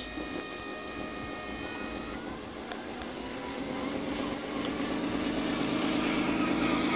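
Radio-controlled scale model Volvo FMX 8x8 dump truck driving slowly over wooden planks, its drive making a steady motor-and-gear whine. From about halfway a low, steady drone grows louder as the truck comes close.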